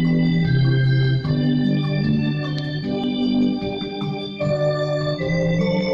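Electronic keyboard played on an organ voice: sustained chords over a moving bass line, the held notes changing about once a second.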